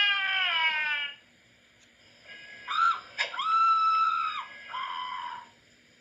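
Cartoon scream sound effects: a high scream that slides down in pitch and breaks off about a second in, then after a short pause a longer high, held scream in several parts, ending with a shorter, lower cry near the end.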